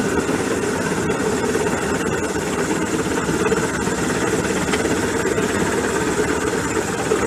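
Rescue helicopter hovering over the ship: a steady, unbroken mix of engine and rotor noise.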